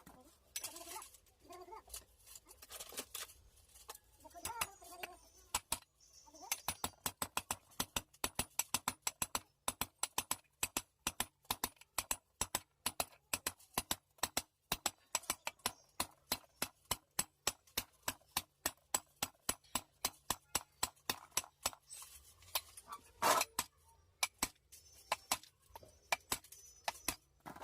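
A long, even run of sharp taps or clicks, about three a second, with one louder knock near the end, typical of hand work on a power tool during a repair. Soft, indistinct sounds come before the tapping starts.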